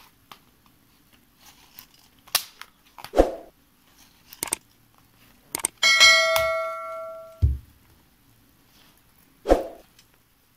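Clicks and knocks of a smartphone being pushed and clamped into a mini gorilla tripod's plastic phone holder. About six seconds in, a bright bell-like ding rings out for about a second and a half, the loudest sound, then stops with a low thud.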